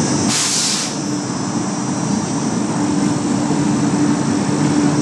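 Indian Railways electric locomotive passing close by, a loud steady rumble with a steady hum through it. A short hiss comes about half a second in.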